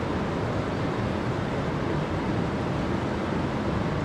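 Steady rushing of river water flowing over rocks and riffles.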